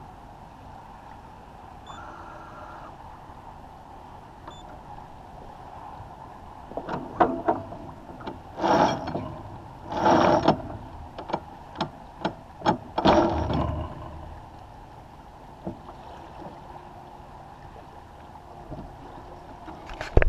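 A First 30 sailboat under sail, with a steady wash of water and wind along the hull. In the middle comes a run of sharp clicks and three louder rustling bursts as the crew handles gear in the cockpit.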